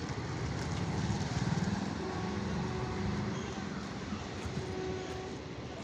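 Goods train of petroleum tank wagons rolling past on the line, a steady rumble that eases slightly near the end as the last wagons clear, mixed with a motorcycle engine running close by.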